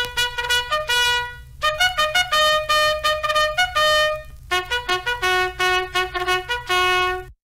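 Bugle call: a melody in three phrases of short and held notes, cutting off abruptly near the end.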